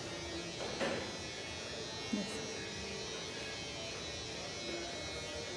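A small electric motor buzzing steadily and evenly.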